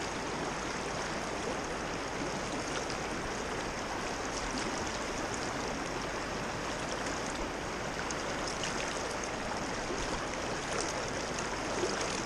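Steady rush of flowing river water from the Neversink River's current.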